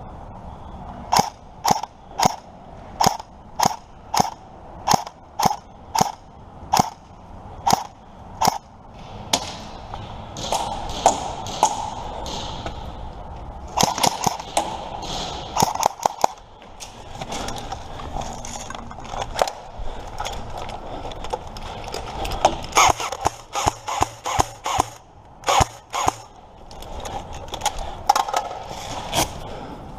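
Airsoft guns firing: a steady run of single shots, about two a second, for several seconds. Then more scattered shots and quick clusters of shots, over movement and rustling.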